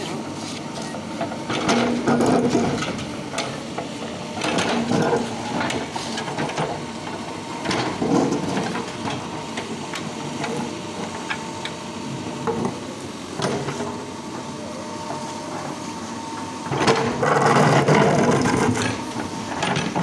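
Mahindra SX90 backhoe loader's diesel engine running steadily while its bucket breaks up and scrapes through a concrete slab and brick rubble, with a burst of noise every few seconds, the longest and loudest near the end.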